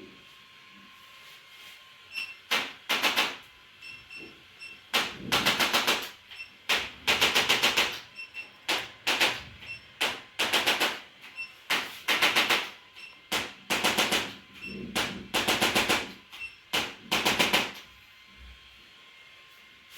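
Rapid rattling taps in repeated bursts, each lasting from a fraction of a second to about a second, coming and going irregularly and stopping near the end.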